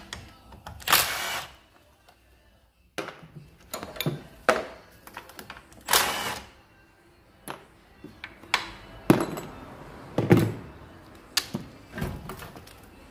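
Metal knocks, clicks and scrapes as a car battery's hold-down clamp is undone with a long-shafted socket driver and the battery is lifted out of its tray. About a dozen separate sounds, several of them lasting about a second.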